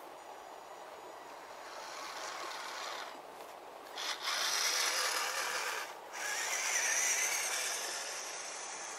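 Vaterra Slick Rock radio-controlled rock crawler driving over frosty grass: its electric motor and geared drivetrain whine along with tyre noise, swelling and dropping in surges of throttle, loudest from about four seconds in.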